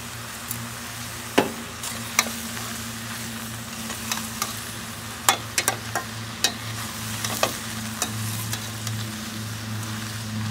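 A metal spatula stirring chopped ridge gourd and drumstick pieces in a stainless steel pan, clinking sharply against the pan a dozen or so times at irregular moments. Under the clinks the vegetables keep up a steady sizzle with a low hum.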